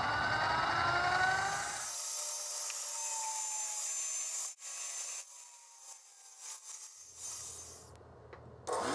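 Benchtop mini mill drilling a hole through a metal clamp bar with a twist drill: the spindle motor's whine rises in pitch over the first couple of seconds while the bit cuts. The low motor hum drops out for a few seconds in the middle, leaving mostly the high cutting sound, and returns near the end.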